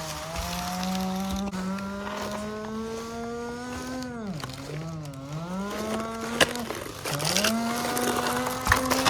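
A person's voice humming a long, drawn-out toy-truck engine noise, its pitch creeping slowly upward, dipping twice and climbing again. Two sharp plastic clicks from the toy come in the second half.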